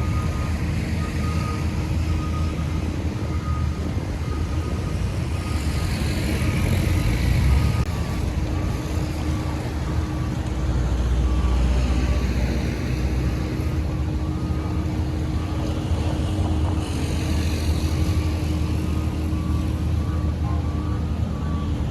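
Diesel engines of heavy road-construction machinery running steadily with a deep drone, swelling louder twice. A faint high tone pulses at regular short intervals throughout.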